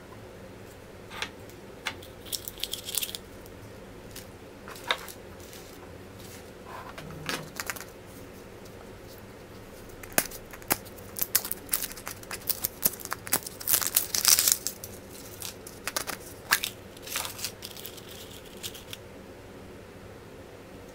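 Surprise-egg wrappers being torn open and crinkled by hand, with scattered small clicks and taps. The handling is busiest in the middle of the stretch.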